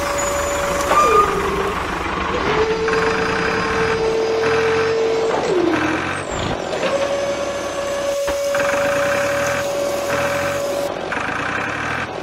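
Small electric motor of a miniature model tractor and tipping trolley whining at a steady pitch. Its pitch drops sharply twice, about a second in and again a little past the middle, then holds at a new pitch. A rhythmic pulsing sound comes over it about once a second.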